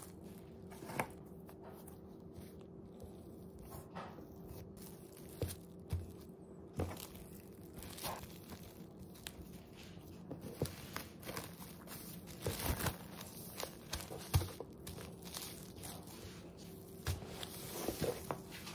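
Plastic cling wrap pulled and crinkled around cookie dough, with hands patting and pressing the wrapped dough on a wooden counter, giving scattered soft knocks. A steady low hum runs underneath.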